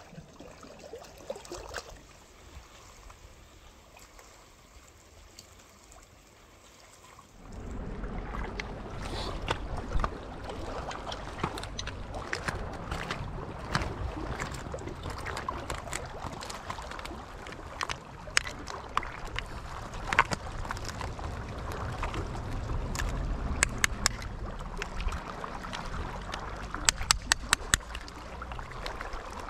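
Small waves lapping and trickling among oyster-covered rocks at the water's edge. The sound grows louder, with a low rumble, about seven seconds in. Near the end comes a quick run of sharp clicks as a blade works at the oyster shells.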